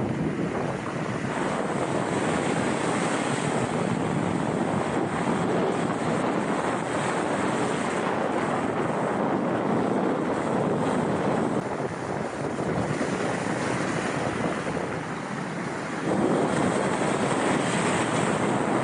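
Rough sea surging and breaking over rock armour in a steady wash of surf, with wind buffeting the microphone. The surf grows louder about three-quarters of the way through as bigger waves crash over the rocks.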